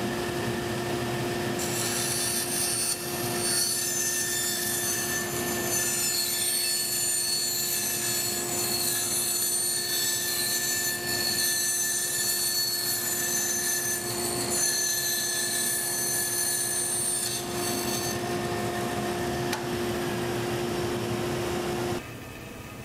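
Laguna 14|12 bandsaw running and cutting a small circle in a block of wood on a pivot circle jig. A steady motor hum runs throughout, with the hiss of the blade in the wood from about two seconds in to about eighteen seconds, and the sound cuts off suddenly near the end.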